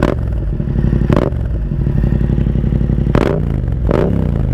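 Yamaha MT-07's 689 cc parallel-twin engine idling loudly through an Akrapovic 2-in-1 carbon exhaust with its baffle removed. Four short sharp pops come through it: one at the start, one about a second in, and two near the end, with the engine note dropping back after the last two.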